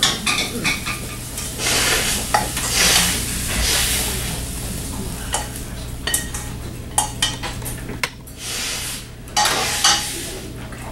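Chopped onions sizzling in a little oil in a frying pan as they are stirred, with scrapes and sharp clinks of a utensil against the pan, the clinks more frequent in the second half.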